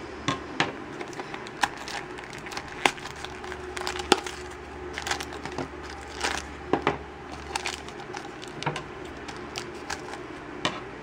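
Crinkly plastic packaging crackling and clicking in irregular snaps as a small Shopkins blind basket is unwrapped and opened by hand, with scissors snipping into a foil blind bag near the end.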